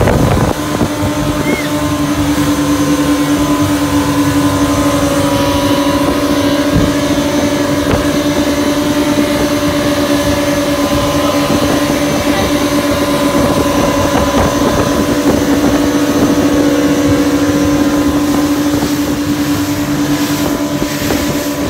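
Jet boat running steadily at speed, its engine a constant even drone, with water rushing past and wind on the microphone.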